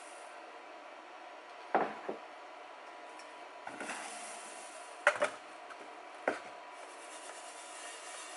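A perforated metal colander nested on an aluminium saucepan, knocking and clinking against it four or five times as it is handled and shaken to sift wild mustard seeds out of their dry pods, the loudest knock a little past halfway.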